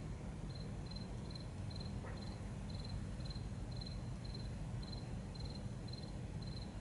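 Cricket chirping steadily, about two short high chirps a second, over a steady low background hum.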